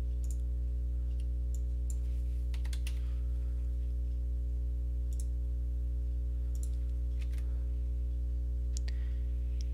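A steady low hum with a ladder of overtones, with about a dozen short computer mouse clicks and keyboard taps scattered over it as the CAD software is operated.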